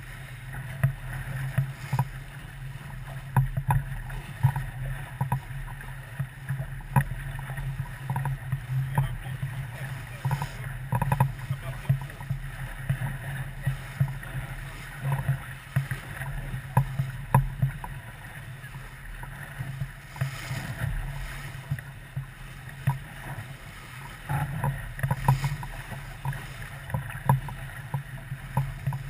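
Steady rumble of a boat under way on the water, with many short irregular knocks and taps.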